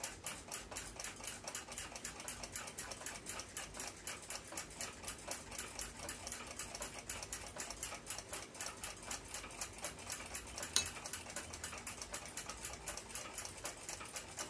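A mechanical clock ticking quickly and evenly, about five ticks a second, with one sharper click about eleven seconds in.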